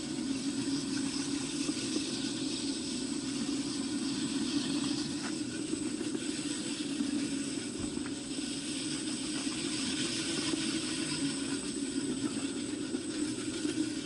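Walk-behind concrete floor grinder running steadily with metal diamond tooling grinding a concrete slab. It makes an even motor hum and grinding hiss with a faint high whine.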